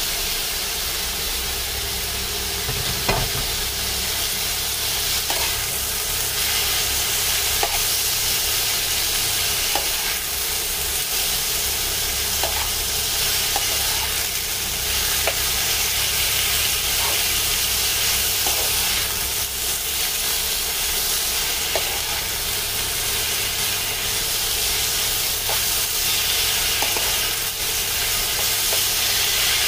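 Chicken and vegetables sizzling steadily in a nonstick frying pan as they are stir-fried, with the spatula clicking and scraping against the pan now and then.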